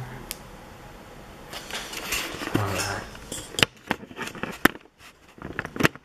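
Handling noise: rustling and rubbing, then several sharp clicks and knocks in the second half as the camera is swung away.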